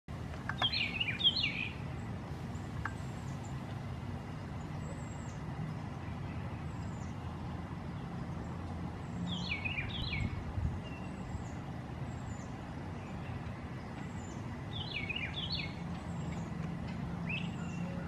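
Eastern bluebird song: three short warbled phrases, one near the start, one about halfway and one near the end. Between them come faint thin high notes, repeating about once a second, over a steady low rumble.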